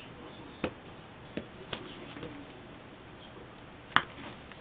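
A handful of short sharp taps and scuffs as a cat swats and kicks at a hand in a play-fight, five in all, with the loudest about four seconds in.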